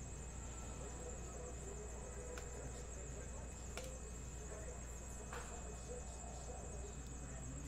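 Trading cards being handled: a few faint, separate clicks over a steady high-pitched whine and a low hum.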